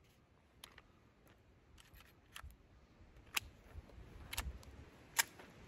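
Faint clicks and clacks of a Glock 44 pistol being handled as its magazine is dropped to clear a round: a handful of sharp clicks spread out, the loudest about three and a half and five seconds in, with a dull knock around four and a half seconds.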